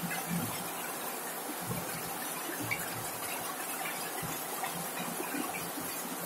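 Heavy rain falling steadily, with scattered louder drops tapping on a corrugated zinc roof.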